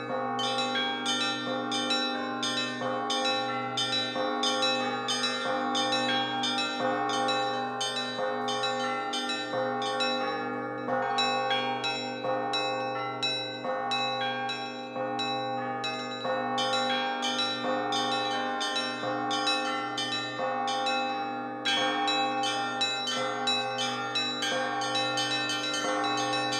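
Russian Orthodox church bells rung by hand in the traditional zvon: rapid strokes on the small high bells over the steady ringing of deeper bells, with the hum of a large bell sounding underneath.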